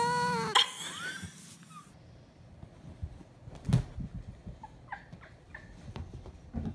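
A cat gives one drawn-out meow that rises and then falls in pitch, at the very start. Later there is a single sharp knock and a few faint, short, high squeaks.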